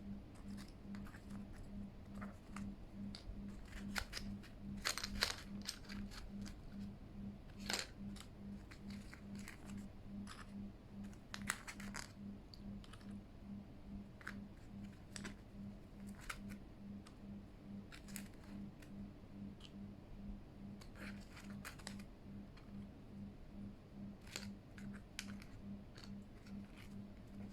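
Plastic keycaps clicking and clattering as they are handled and sorted, in scattered sharp clicks with a busier cluster about five seconds in. Underneath runs a steady low hum that pulses about twice a second.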